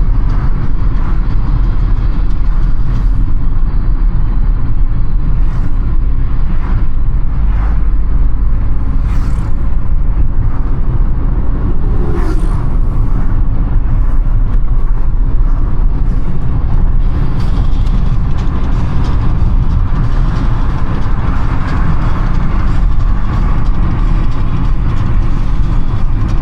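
A car driving in city traffic: a steady, loud low rumble of road and engine noise, with a few brief higher noises now and then.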